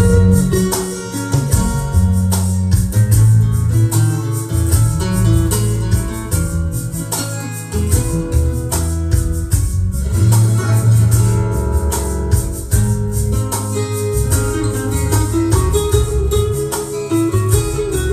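Rock song with guitar lead lines over bass and a steady drum beat.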